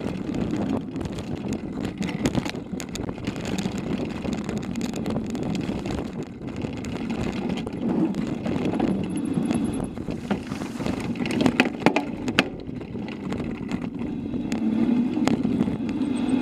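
Mountain bike riding downhill, heard from a camera mounted on the bike: a steady rumble of tyres on dirt and gravel, broken by frequent sharp rattles and knocks as the bike goes over rough ground, the loudest cluster of knocks about eleven to twelve seconds in.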